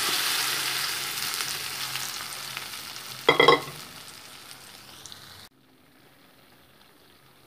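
A tempering of mustard seeds, cumin, urad dal, red chillies, onion and curry leaves sizzling in hot oil in a kadai, the sizzle dying away as the cooked dal is poured in over it. About three seconds in there is a short metallic clink, and the sound stops abruptly about five and a half seconds in.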